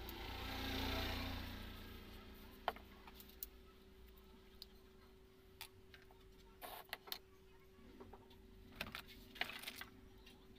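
Faint handling noises from small plastic and cardboard speaker parts being picked up and set down on a wooden workbench: scattered light clicks and knocks, in a cluster near the end. At the start a rushing noise swells and fades over about two seconds, and a faint steady hum runs underneath.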